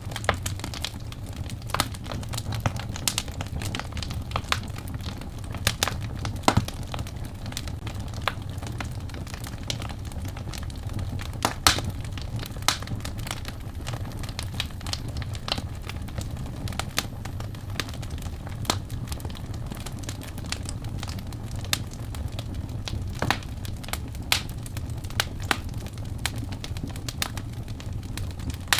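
Wood fire burning with irregular crackles and sharp pops over a steady low rumble of flame.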